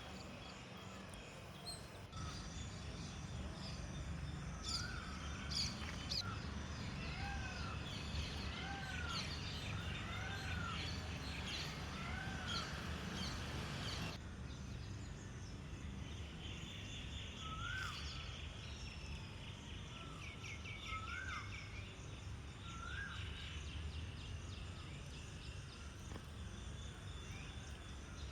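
Several wild birds calling at once. One bird repeats a short rising-and-falling call about once a second, while others chirp and twitter higher up. A steady low rumble runs underneath, and the mix changes abruptly about halfway.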